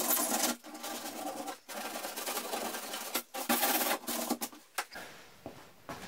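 Sandpaper rubbed back and forth by hand over the freshly cut edge of a window opening in a fridge door's sheet-metal skin, smoothing it in a run of short strokes that stops about five seconds in.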